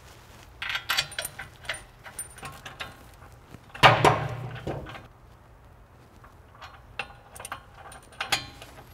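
Steel caliper mounting bolts and washers clinking and rattling as they are handled and threaded back by hand into a brake caliper bracket, with one louder metallic clank about four seconds in that rings on for about a second.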